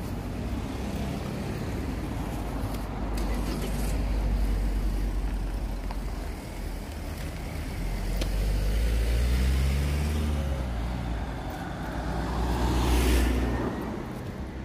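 Cars passing one after another on the road close by, engine and tyre noise swelling about four seconds in, again around nine to ten seconds, and loudest near the end as one goes by with a falling pitch.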